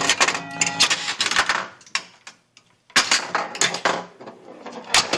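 Bride of Pinbot pinball machine clattering with sharp mechanical clicks, mixed with steady electronic game tones. It stops about two seconds in and starts clicking again about a second later.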